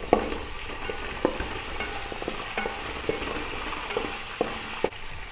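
Shallots frying in hot coconut oil in a metal pan: a steady sizzle, with a wooden spatula stirring them and knocking against the pan several times.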